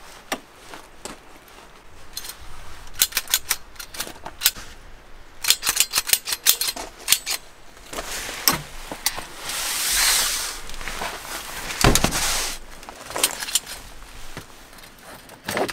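A long metal-rod bristle brush knocking and scraping around a pickup truck bed: a run of quick clicks and rattles, then a longer brushing scrape with a solid knock about twelve seconds in.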